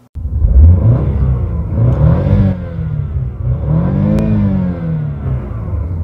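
Car engine revved twice while parked, the pitch climbing and falling back each time.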